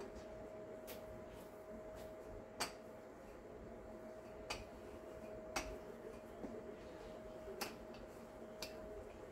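Wooden rolling pin rolling out bread dough on a granite countertop, with about six sharp clicks at irregular intervals as the pin knocks against the stone, over a faint steady hum.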